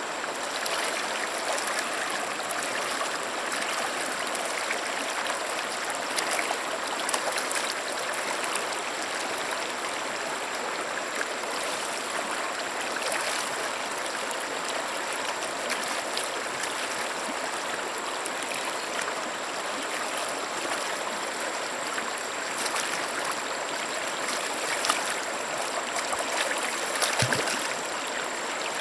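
A stream running steadily over rocks, with an even rushing and trickling sound.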